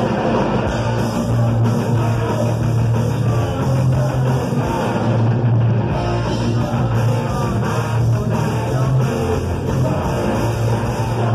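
Live rock band playing loudly: electric guitars, bass guitar and drums, amplified on stage.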